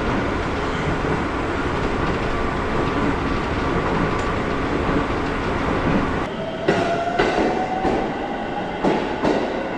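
Electric train running at speed, heard from inside the passenger cabin: a steady rumble and rail noise. About six seconds in it gives way to an electric train heard from the platform, its motor whine rising in pitch as it pulls away, with sharp clicks of wheels passing over rail joints.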